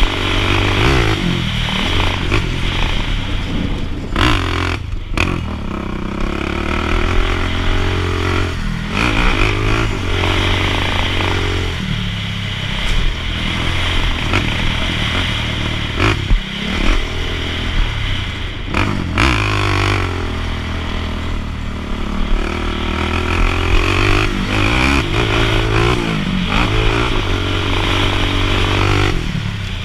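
Sport quad's engine running hard on a dirt track, its pitch climbing under throttle and falling back when the throttle is eased, over and over, with several short dips.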